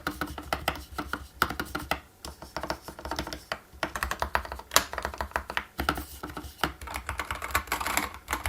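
Fast typing on a Dark Project KD104a mechanical keyboard with Gateron Optical Red linear switches: a rapid, uneven patter of key strikes, somewhat damped by the keyboard's vibration-absorbing case.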